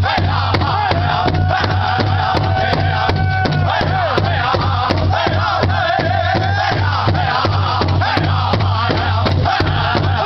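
Powwow drum group singing a contest song in high, held voices over a steady drumbeat on a large shared drum.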